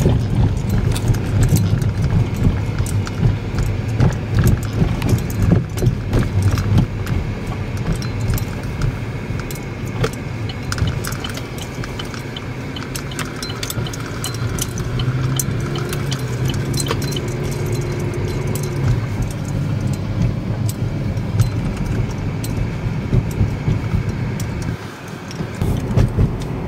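Car cabin noise while driving: a steady low road rumble with dangling keys jingling and clicking throughout as the car rides over the road. A steady engine note comes up for a few seconds midway.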